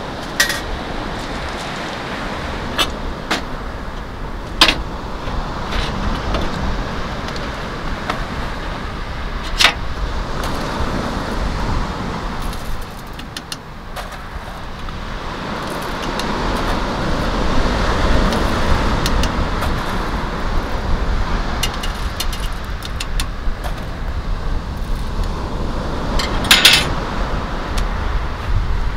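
Steady rushing wind and surf noise outdoors. Scattered light clicks and clinks come from a metal camp kettle, a coffee bag and a hand coffee grinder being handled, with a quick rattle of clicks near the end.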